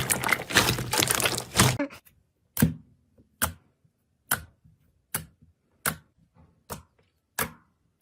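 Slime being squeezed and worked in the hands, crackling and popping densely for about two seconds. After that come single sharp pops, about one every 0.8 seconds.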